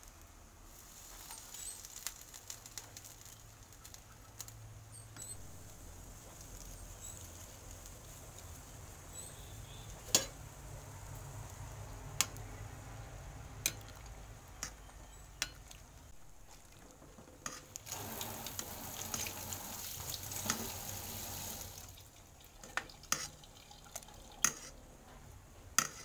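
Metal ladle stirring and pressing leafy greens down into water in an aluminium pot, with the water sloshing and sharp clinks of the ladle against the pot every second or two. A few seconds of louder hiss come past the middle.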